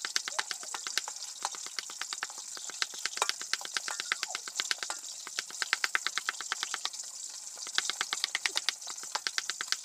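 A large kitchen knife rapidly chopping softened dried mushrooms on a thick wooden chopping block, a fast, even run of several sharp chops a second with brief let-ups.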